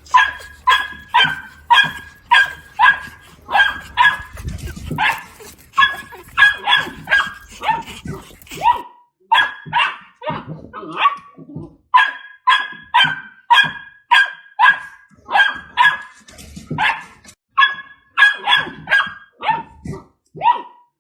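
A dog barking repeatedly, about one or two short barks a second. The recording changes about nine seconds in, and the barking carries on.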